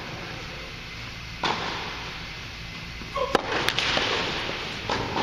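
Tennis balls struck by rackets during a serve and the rally after it: a sharp hit about a second and a half in, two more in quick succession around three and a half seconds, and another near the end, each echoing in the large indoor tennis dome.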